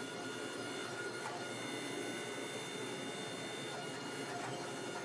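Hydraulic forging press running with a steady whine and hum as its dies squeeze a glowing steel billet flat, with a few faint ticks.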